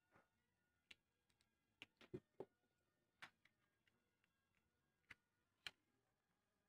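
Faint, scattered clicks and taps of small hand tools, a screwdriver and then a small blade, against a small wooden tattoo-machine grip as it is handled and worked. There are about a dozen sharp clicks, several close together around the second and third seconds, and two more later.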